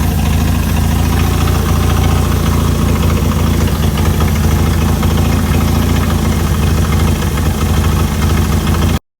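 Chrysler Hemi 265 straight-six engine idling steadily. It cuts off suddenly near the end.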